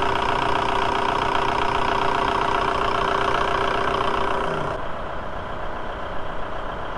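Volkswagen 1.9 L ALH TDI diesel engine idling steadily while it warms up after a thermostat replacement. About five seconds in it becomes quieter and more muffled.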